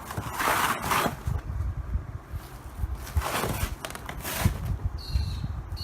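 Cardboard packing box being ripped open by hand: a few tearing strokes, the biggest just after the start and another about three seconds in, with a short high squeak near the end.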